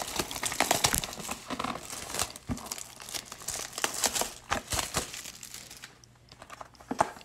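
Plastic shrink-wrap being torn and crumpled off a sealed trading-card box, crinkling and crackling steadily, then dying down about six seconds in with one more crackle near the end.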